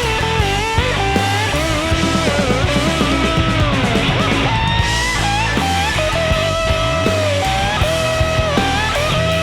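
Blues-rock band playing: an electric guitar plays a lead line full of string bends and slides over bass guitar and a steady drum beat.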